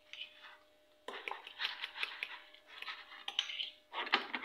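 A spoon stirring and scraping thick mayonnaise sauce in a small glass bowl, with light clicks of the spoon against the glass. It pauses briefly, then picks up again about a second in.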